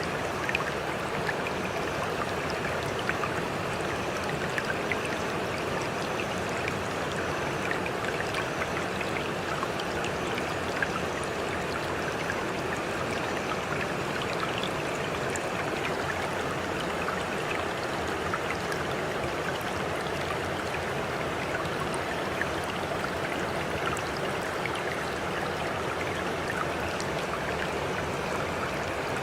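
Running water: a steady, unbroken rush of flowing water with many small splashes scattered through it.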